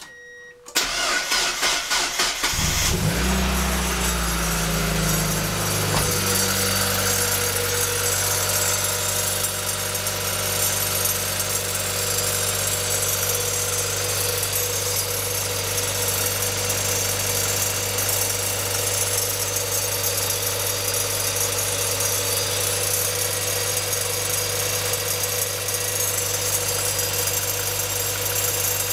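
Mazda Roadster NB6C's 1.6-litre four-cylinder engine cranked by the starter, catching after about two seconds on a fast idle that settles over the next few seconds to a steady idle. A steady whine runs over the idle: the abnormal noise from the engine's belt-driven accessories.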